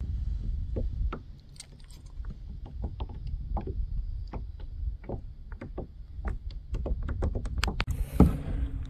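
Wind rumbling on the microphone over a run of small clicks and knocks from a plastic kayak and its gear, with one louder knock about eight seconds in.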